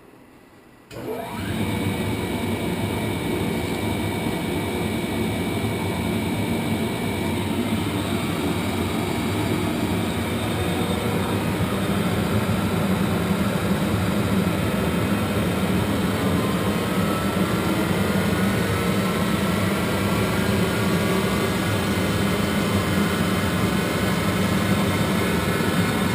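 Monarch 10EE lathe starting up about a second in, then running steadily with a mechanical hum and whine; some of its higher tones slowly rise in pitch in the second half.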